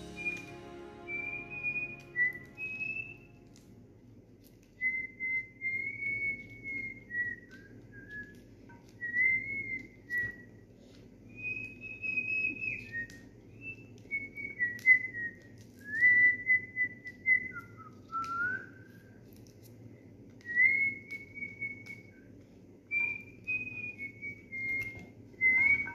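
A person whistling a tune: phrases of one clear tone that glides up and down, with short pauses between them. Scattered light clicks and taps are heard over a steady low hum.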